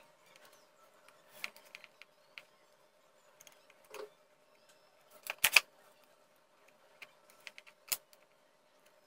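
Light taps and clicks from a soldering iron and a small circuit board being handled on a wooden table while a wire is soldered on. A louder cluster of knocks comes about five and a half seconds in and a sharp click near the end, over a faint steady hum.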